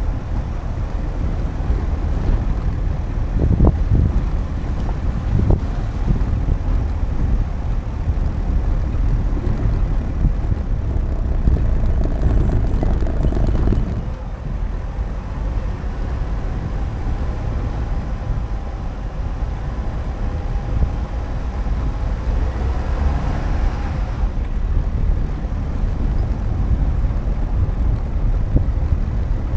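A car driving along a road: a steady low rumble of engine and road noise, which eases slightly about halfway through.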